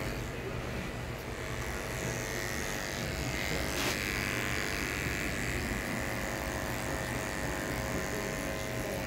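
Cordless Andis detachable-blade hair clipper running steadily while cutting short hair, with one brief click about four seconds in.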